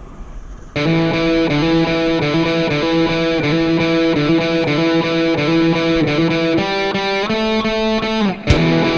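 Background rock music with distorted electric guitar, cutting in abruptly under a second in over faint wind noise, with a brief break in the music near the end.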